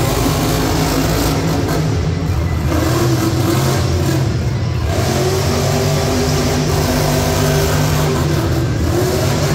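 Monster truck's supercharged big-block V8 revving loudly and continuously. Its pitch rises and falls several times as the throttle is worked.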